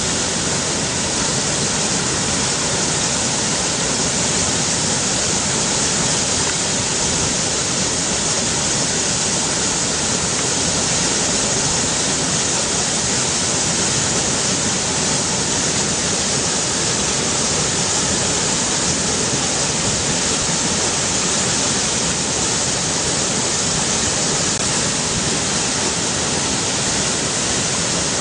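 River water rushing, a steady even noise.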